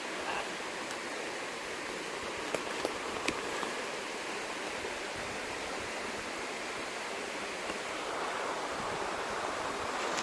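Steady rushing of a river flowing, with a few faint clicks about a quarter of the way in.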